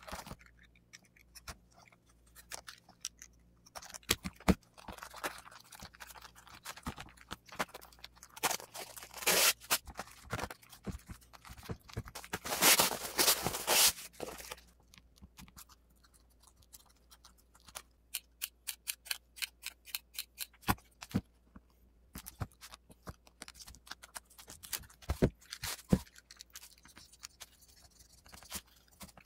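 Prepreg carbon fiber fabric being handled, pressed down and trimmed by gloved hands: rustling and crinkling of the sheet, a louder spell of rustling about halfway through, and scattered sharp clicks and snips of cutting.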